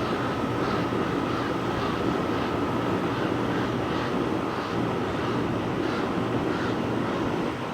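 Steady wind noise on the microphone, with faint, short, harsh calls of a common raven repeating about every half second to second above it.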